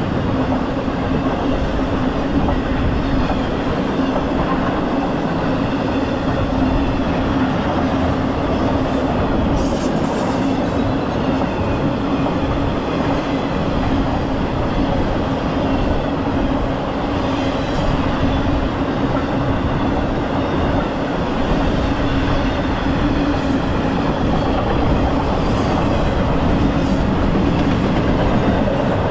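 Double-stack intermodal freight cars rolling past at speed: a loud, steady wheel-on-rail rumble with a constant hum under it. A faint high-pitched wheel squeal comes in during the second half.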